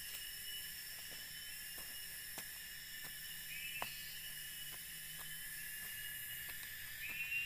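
Steady high-pitched drone of forest insects, with scattered short clicks and scrapes as a small hand tool digs into soil.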